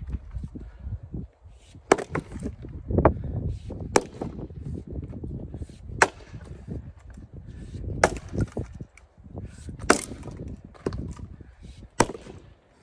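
Axe splitting short firewood rounds: six sharp strikes about two seconds apart, each cracking a round apart. Lower thuds and rustling come between the strikes.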